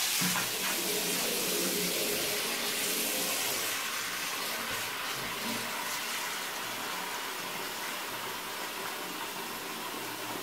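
Steady rush of running water splashing in a bathtub, slowly getting quieter.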